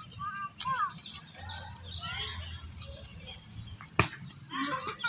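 Birds chirping in short, quick sweeping notes, with a single sharp knock about four seconds in.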